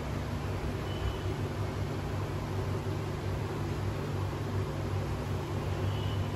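A steady low mechanical hum under a hiss.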